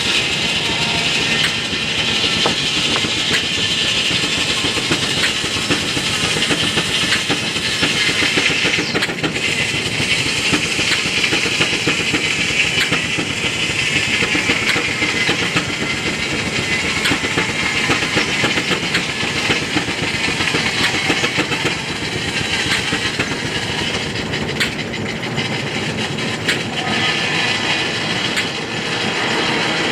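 Steam-powered sawmill at work: the steam engine running with steady hiss and mechanical clatter from the mill, a little rougher for the first several seconds and then smoother.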